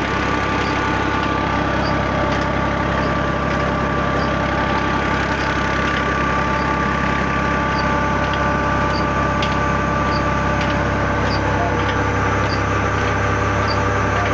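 Ghazi tractor's diesel engine running steadily, turning a flat belt and pulley that drive a tubewell pump shaft. There is a steady whine and a light regular tick about every two-thirds of a second.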